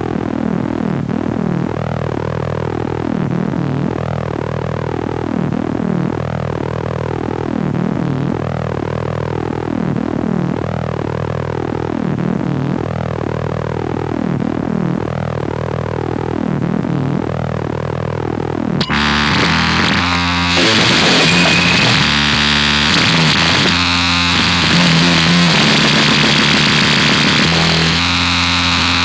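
Electronic noise music: synthesizer tones sweep repeatedly up and down over a steady low drone. About nineteen seconds in it switches abruptly to a louder, harsher wash of distorted noise with stepped low notes.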